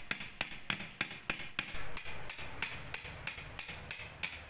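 Hammer striking the top of a thin metal rod, driving it into the ground: steady blows about three a second, each with a high metallic ring.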